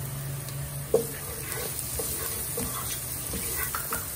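Chopped onion and garlic with achiote frying and sizzling in oil in a pot, stirred with a plastic spoon that scrapes along the bottom. A sharp knock about a second in.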